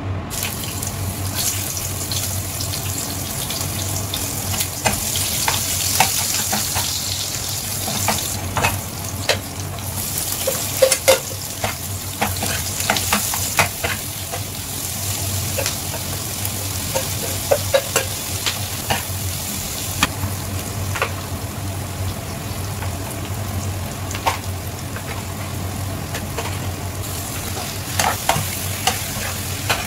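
Chopped onion, garlic and ginger sizzling in hot oil in a frying pan, with a metal spoon scraping and clinking against the pan as it stirs.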